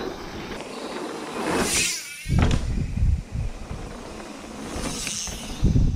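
Mountain bike rolling fast down a dirt trail: tyres on dirt and wind rushing over the bike-mounted microphone, with a brief whoosh just before it cuts off at about two seconds. After that comes quieter woodland sound with low wind buffets on the microphone, near three seconds and again near the end.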